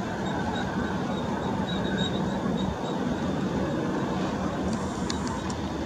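Boeing 737-800's CFM56-7B turbofan engines running as the airliner rolls out along the runway after landing: a steady noise with a faint high whine.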